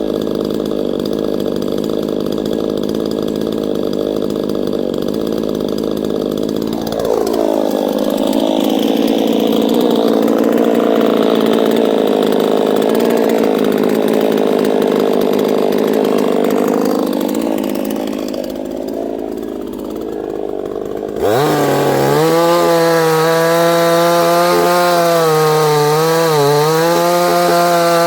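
Neotec NCS6800 68cc two-stroke chainsaw running while cutting wood. Its engine speed rises about seven seconds in, sags a few seconds before the end, then climbs sharply and is held high, dipping slightly now and then.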